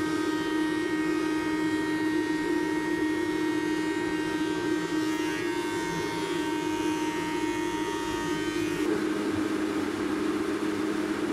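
Forte SX-533 thickness planer running, a steady mechanical drone with a low hum and a faint high whine.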